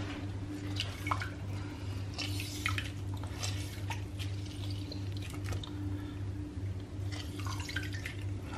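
Lemon juice dripping and splashing into a stainless steel pot holding a shallow layer of water as a lemon is squeezed by hand: scattered small drips, over a steady low hum.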